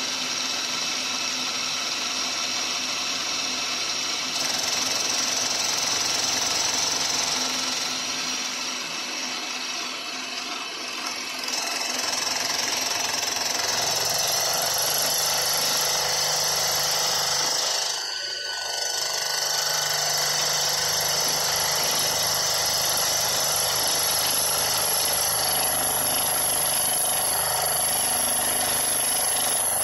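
Maktek KF 25L Vario bench milling machine taking a facing cut with a single-insert fly cutter on a metal block, spindle motor and cutting noise running steadily. The sound dips briefly around ten and eighteen seconds in. The cut is heavy for the machine: its motor is too weak for it.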